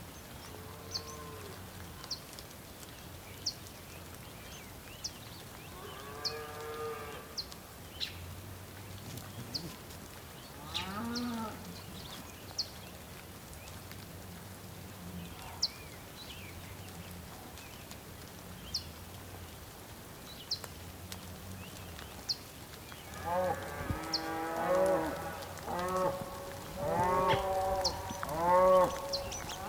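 Bulls mooing: a single call, another a few seconds later, then a run of repeated, overlapping calls in the last several seconds, loudest near the end. Short high ticks recur every second or two throughout.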